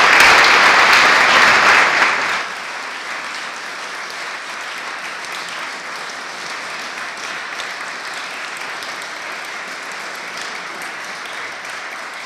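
Audience applauding: loud for the first couple of seconds, then dropping to a quieter, steady clapping that carries on.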